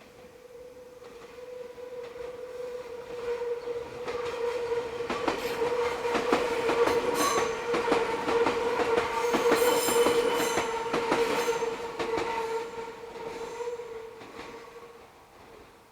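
Meitetsu train wheels squealing against the rail as the train rounds a tight curve, a steady high-pitched whine. Rail-joint clicks come as the cars pass. The squeal swells to its loudest about ten seconds in, then fades as the train moves away.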